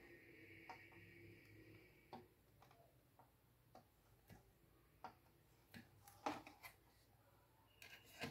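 Faint, irregular clicks and taps of a soldering iron and component leads against a computer motherboard during capacitor replacement, over a faint hiss in the first two seconds. A few sharper knocks come near the end as the board is lifted and turned over.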